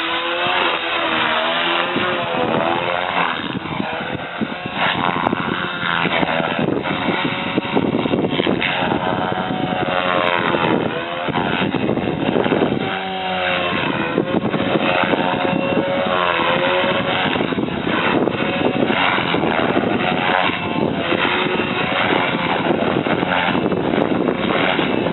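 GAUI Hurricane 425 electric RC helicopter with a Scorpion HK-3026 brushless motor in flight: the main rotor and motor whine, their pitch rising and falling over and over.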